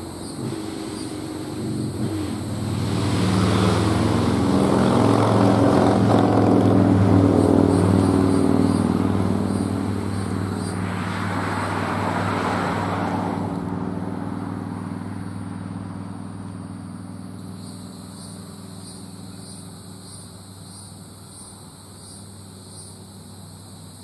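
Federal Sign & Signal Model 5A three-phase fire siren sounding the attack signal. Its sound swells and fades twice, then dies down over the last several seconds. The siren is running under-powered, which the owner puts down to a supply of about 125 V.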